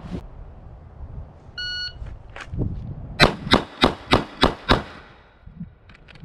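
A shot timer gives one start beep. About a second and a half later a Glock 45 9mm pistol fires six quick shots, roughly three a second, in a Bill Drill from a concealed draw.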